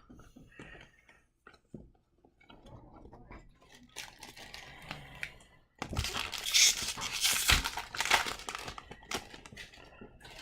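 Trading-card pack handling: soft rustles and clicks of cards at first, then about six seconds in a loud crinkling and tearing of a foil pack wrapper being ripped open, lasting a couple of seconds, with lighter rustling after.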